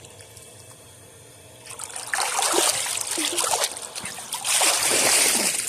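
Creek water splashing and streaming off a person sitting in a cold plunge as he ducks his head under. It is quiet for the first second and a half or so, then comes two spells of splashing and dribbling water.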